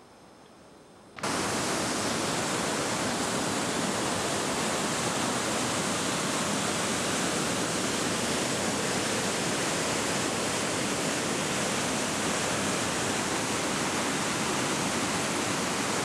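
Churning whitewater of the Magog River rushing over falls, a loud steady roar that cuts in suddenly about a second in after a faint hiss.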